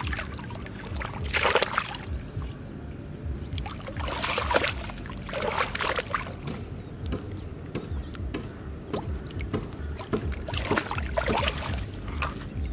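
Hands splashing and sloshing in shallow muddy water while grabbing at fish, in bursts about a second and a half in, again around four to six seconds, and near the end, over a steady low rumble.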